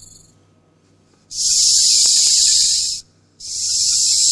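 A snake hissing: two long hisses, each lasting a second and a half or more, with a short break between them.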